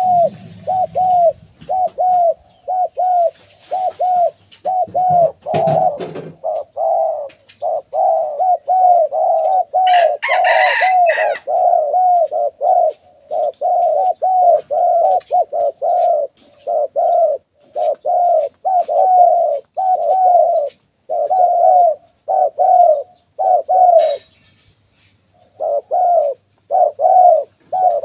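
Two spotted doves cooing back and forth in a cooing duel, a steady run of short cooing notes, with a brief pause near the end. A short noisy burst about ten seconds in.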